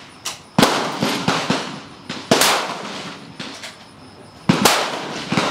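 Rifle shots on an outdoor range: three loud cracks roughly two seconds apart, each with a long echoing tail, with several fainter cracks in between.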